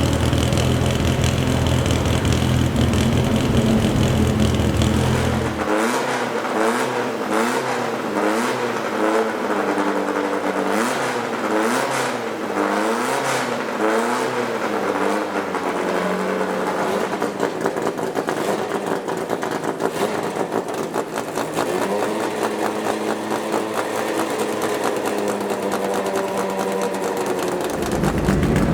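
Racing car engines at full throttle on track, the pitch repeatedly climbing and dropping through the gears for several seconds, then holding steadier.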